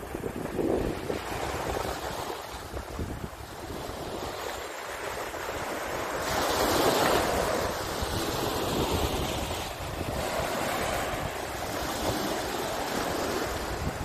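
North Sea surf: small waves breaking and washing up a sandy beach, swelling loudest about six to eight seconds in and again later, with wind rumbling on the microphone.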